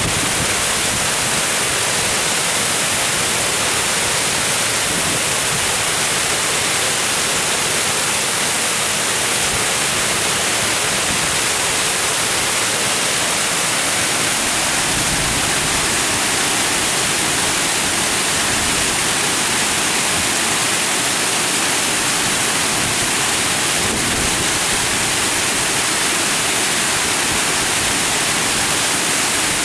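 Water pouring over a stepped weir, a steady rushing hiss.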